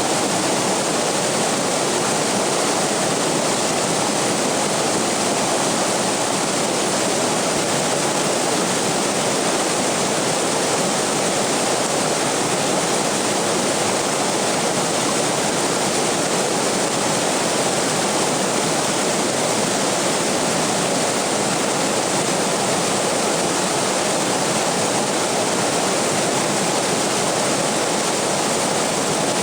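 Waterfall rushing, a loud, steady, unbroken wash of falling water.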